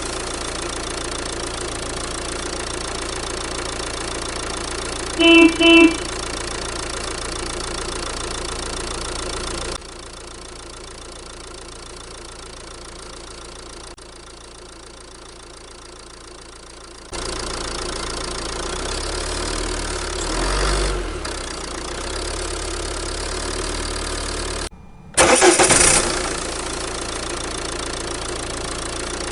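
Cartoon vehicle engine sound effect running steadily, with two short beeps about five seconds in, a quieter stretch in the middle, and a brief loud surge of engine noise near the end.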